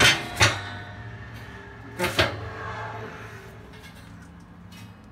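Steel slide-out ash pan of a smoker's firebox handled by its handle, metal sliding and clanking on metal: two sharp clanks at the start and two more about two seconds in, each ringing briefly.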